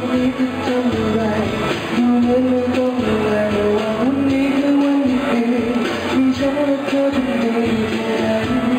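A man singing a pop song live into a handheld microphone over musical accompaniment, amplified through PA speakers, holding long notes.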